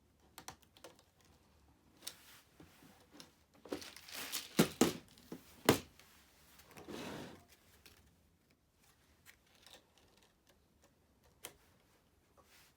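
Hands working on a robot vacuum's plastic parts: scattered clicks and light knocks, with a flurry of sharper knocks in the middle and a brief rustle just after.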